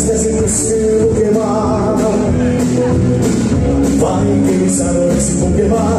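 Live band playing a rock and roll song: a man singing into a microphone over electric guitar and drums, with steady cymbal strokes.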